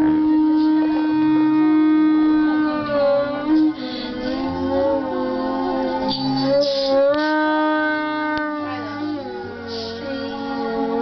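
A beer bong blown like a horn, with long held horn-like notes. It holds one steady note for about the first three seconds, then steps and bends to other pitches, dropping lower near the end.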